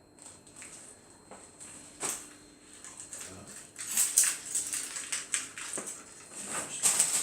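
Crinkling and rustling of packaging being handled during an unboxing, in irregular bursts, loudest about four seconds in and again near the end.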